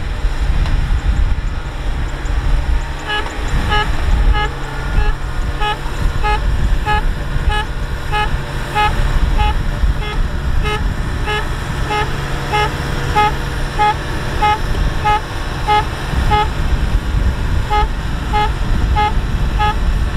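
Kubota DC70 combine harvester's diesel engine running with a steady low rumble. From about three seconds in, an electronic warning beeper sounds about twice a second.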